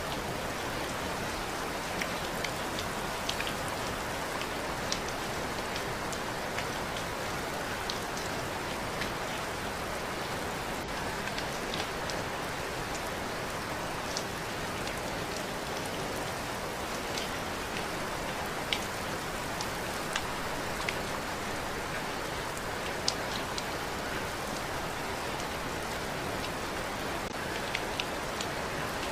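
Steady rain falling, with scattered sharper taps of single drops striking close by.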